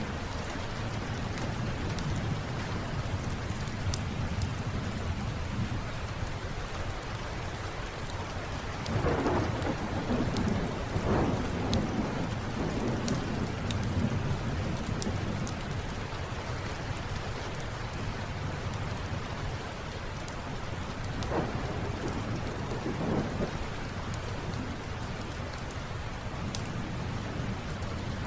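Steady rain falling, with rolls of thunder rumbling about a third of the way in and again about three quarters through. Small sharp crackles are scattered throughout.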